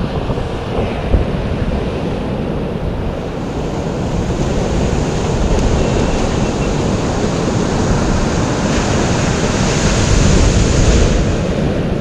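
Ocean surf breaking and washing up a sandy beach, with wind buffeting the microphone. The wash swells a little louder through the middle and later part.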